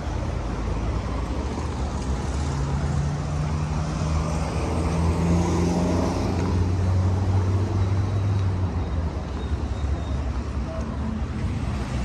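Road traffic: a steady hum of cars passing. One engine's drone grows louder through the middle and fades away about nine seconds in.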